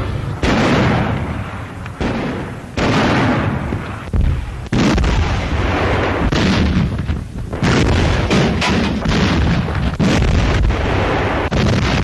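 Artillery guns firing: a string of about ten heavy booms, each followed by a rumbling decay, coming faster in the second half.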